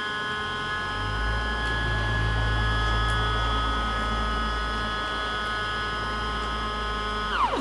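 Stepper motor of a DIY camera slider under grbl control, whining at several fixed pitches as it drives the camera carriage along its rails, with a low hum joining about a second in. Near the end the whine glides down in pitch and stops as the motor decelerates to a halt at the end of the move.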